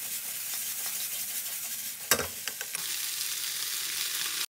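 Flat green beans sizzling as they are stir-fried in a nonstick wok, stirred and tossed with a wooden spatula that scrapes and clicks against the pan. One louder knock comes about two seconds in, and the sound cuts off suddenly at the end.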